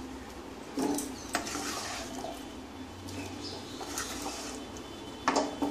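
Wooden spatula scraping and knocking against a non-stick kadai as cooked chickpeas are scooped out into a bowl: a few soft scrapes and clicks, the loudest near the end.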